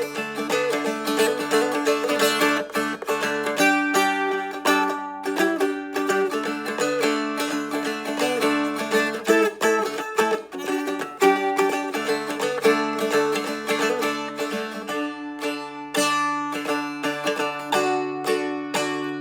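Instrumental break strummed and picked on a Seagull Merlin, a small four-string diatonic dulcimer-style instrument: a plucked melody over steady held drone notes.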